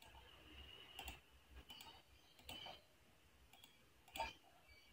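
A few faint computer mouse clicks, spaced irregularly, the loudest about four seconds in.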